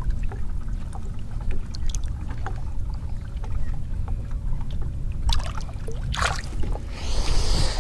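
Water lapping and sloshing around a small fishing boat over a steady low rumble, with scattered small knocks and a couple of short noisy bursts in the second half.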